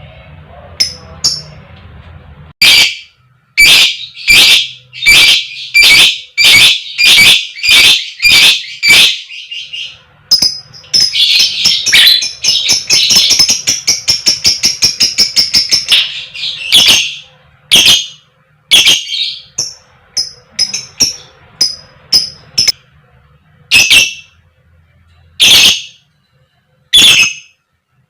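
Lovebird giving loud, sharp 'koek koek' calls, the fighter call used to set other lovebirds calling. A string of single calls about two a second breaks into a rapid chatter of fast notes from about ten to sixteen seconds in, then goes back to spaced single calls.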